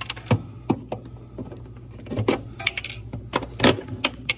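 Irregular clicks, knocks and rattles of plastic and wire refrigerator parts being handled and pulled loose, over a low steady hum.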